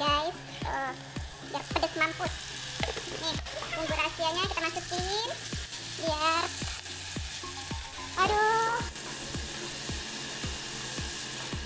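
Sliced shallots and chili paste sizzling as they fry in hot oil in a wok, with a silicone spatula stirring and scraping the pan in repeated strokes.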